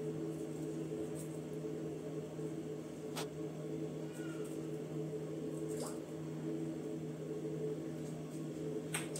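Steady low electrical hum with a few faint clicks spread through it.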